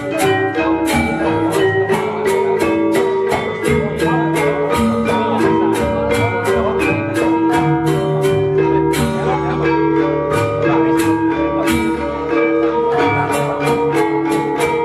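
Balinese gamelan selonding ensemble playing: its iron-keyed metallophones are struck with mallets in a quick, steady pulse of ringing notes, about four strokes a second, layered over longer held tones.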